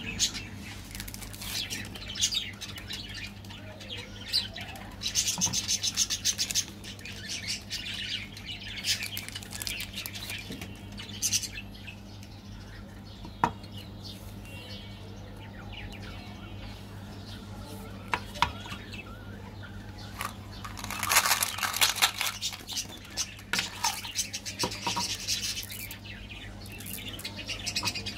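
Foil and plastic candy wrappers crinkling and tearing as chocolate wafer bars are unwrapped by hand, in irregular crackly stretches with a few sharp clicks. Later, small candy-coated chocolate beans rattle out of a small plastic bottle into a palm. A steady low hum runs underneath.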